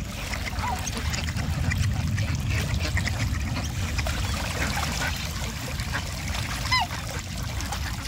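Water birds calling by a lake: scattered faint chirps and small splashing sounds over a steady low rumble. There is one short pitched call near the start and a louder, clearer call near the end.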